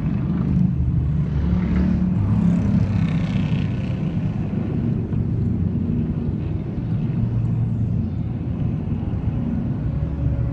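Motorcycle engines rumbling as cruiser motorcycles ride past one after another, the engine note swelling and fading with each bike.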